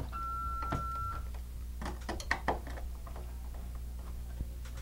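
The alarm system gives a single steady electronic beep, about a second long, as it powers up. A few light clicks and taps follow as a screwdriver fastens the plastic plug-in transformer to the outlet faceplate, over a low steady hum.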